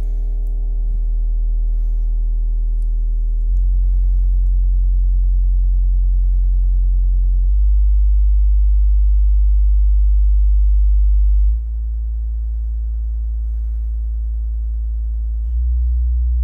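XTZ 1217 Edge subwoofer playing steady deep-bass sine test tones from around 20 Hz upward, stepping to a new tone about every four seconds. The step about two-thirds of the way through is noticeably quieter than the others.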